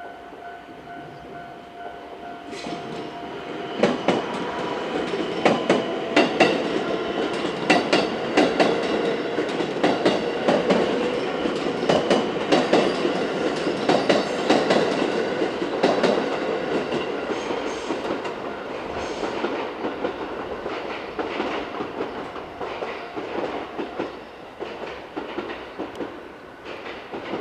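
JR West 223 series six-car electric train passing over a level crossing, its wheels clacking over the rail joints in a rapid, dense run as the cars go by. The train comes up loud about four seconds in and the clacking thins out near the end. Early on, a level crossing's electronic warning bell rings.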